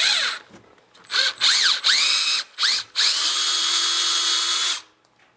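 Cordless drill boring out a damaged exhaust bolt hole in a small engine to the drill size for a 5/16-18 Heli-Coil insert. It gives several short trigger pulses, each spinning up and winding down, then one steady run of about two seconds that stops shortly before the end.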